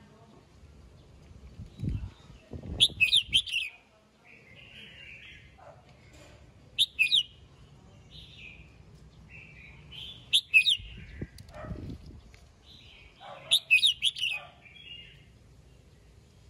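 Caged red-whiskered bulbul singing: four short, loud phrases of sharp whistled notes, about three and a half seconds apart, with softer chattering notes between them.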